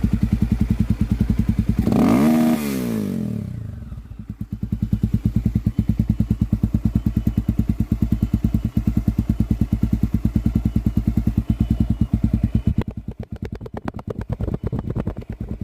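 Small motorcycle engine idling with an even beat, blipped once to high revs about two seconds in and dropping straight back. The bike has a noise that shows up only at high revs and not at idle. Near the end the idle beat turns weaker and uneven.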